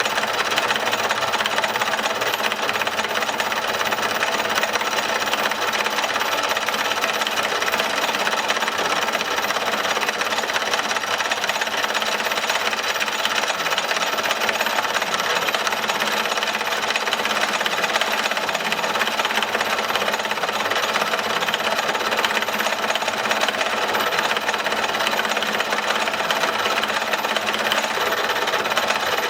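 A power tool running steadily under load, a continuous dense rapid rattle with no pauses.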